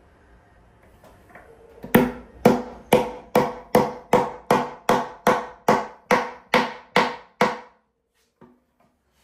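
Ball-peen hammer driving a steel tee nut into the end grain of a wooden chair leg: about fourteen even strikes, two or three a second, each with a short ringing decay. They start about two seconds in and stop shortly before the end, seating the tee nut's prongs flush in the wood.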